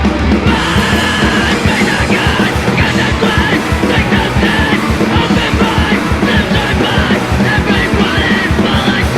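Hardcore punk song played at full tilt: dense, fast drumming under a loud band, with shouted vocals coming in about half a second in and carrying on throughout.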